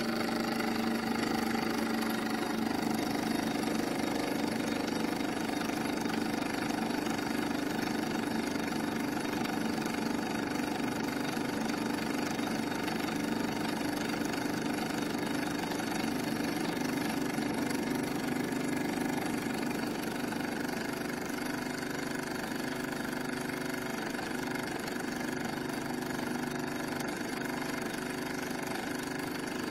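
Scratch-built Tubal Cain 'Polly' vertical model steam engine running steadily under steam: a fast, even patter of exhaust beats that gets slightly quieter about two-thirds of the way through.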